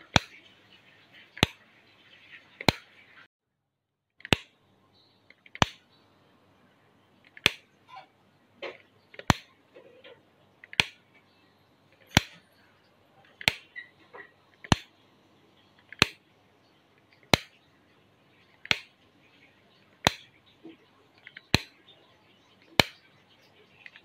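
A household wall light switch clicking over and over, one sharp click about every second and a half.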